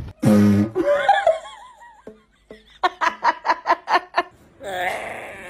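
Laughter: a quick run of about eight 'ha' pulses in the middle, after a loud short cry at the start. Near the end a new, wavering call begins.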